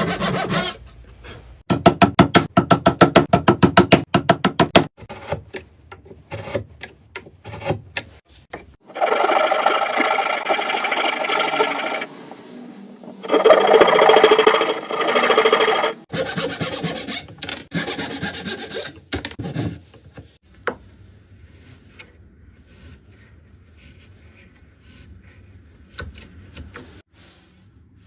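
Rapid back-and-forth rasping strokes of hand tool work on a piece of material, in several bouts separated by pauses. Scattered light taps follow in the last third.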